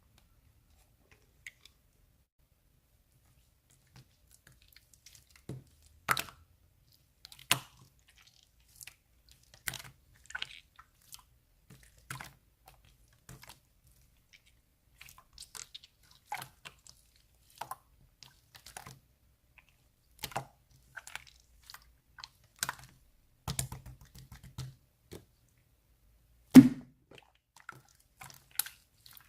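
Clear pink slime being worked by hand, making irregular sharp clicks and pops, about one or two a second, with one loud pop near the end.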